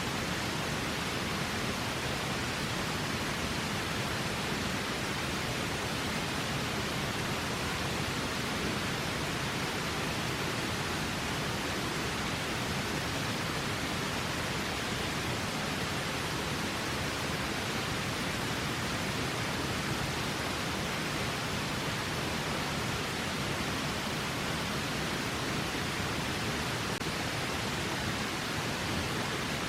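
Steady rushing of river water, an even wash of noise that does not change.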